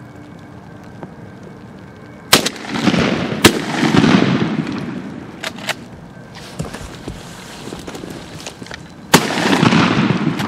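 Three shotgun blasts: two about a second apart and a third near the end. Each pair or single blast is followed by a couple of seconds of loud rushing noise.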